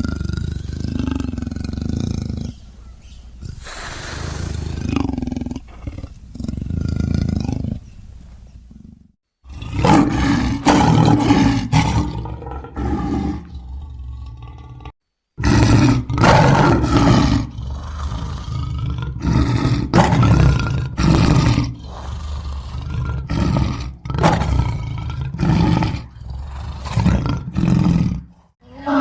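Cave bear sound effects from an animated series: a string of deep, rough growls and roars, each lasting a second or two, with short gaps between them. The sound breaks off completely for a moment twice, about nine and about fifteen seconds in, where one clip is cut to the next.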